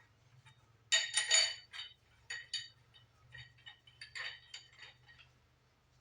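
Metal clinking in several short clusters, each with a bright ringing afterward, loudest about a second in and fading into lighter clinks later.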